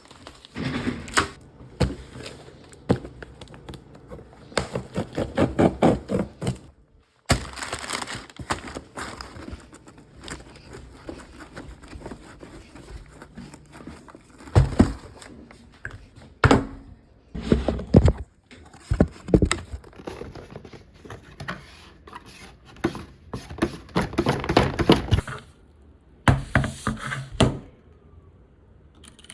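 Keyboard packaging being handled and opened: irregular rustling broken by many knocks and thuds, with a few abrupt cuts.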